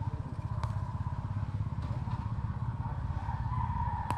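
A small engine running steadily, with a rapid low pulsing and a faint wavering whine above it. A few faint clicks stand out over it.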